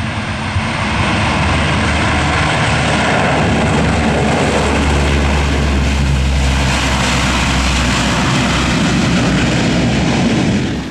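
Lockheed C-130 Hercules turboprop engines running loud, with a deep drone that strengthens about halfway through. The sound cuts off suddenly at the end.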